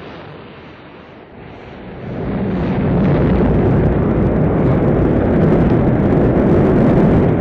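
Rocket launch: the engines' rumble swells about two seconds in and then holds as a loud, steady low rumble.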